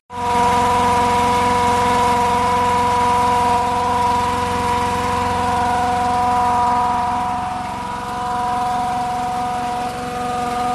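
Small gasoline engine driving a mini fire truck's fire pump, running steadily with a strong, even hum.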